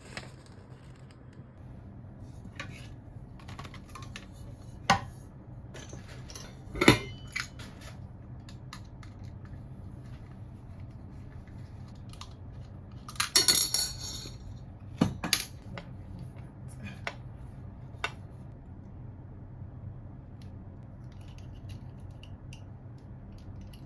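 Kitchen clatter as a new saucepan and utensils are handled: scattered knocks and clinks, with a short burst of metallic rattling about halfway through, over a steady low hum.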